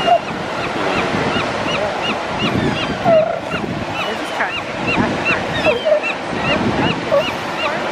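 Surf washing steadily, with birds calling over it: a rapid, even run of short high calls, about three a second, and a few lower squawks now and then.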